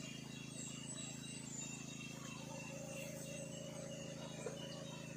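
Quiet outdoor ambience: faint short high chirps repeat irregularly throughout, over a low steady hum.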